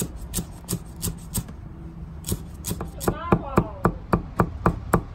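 Cleaver mincing garlic on a round wooden chopping block: sharp knocks about three a second, a brief pause, then a faster, louder run of about four chops a second through the second half.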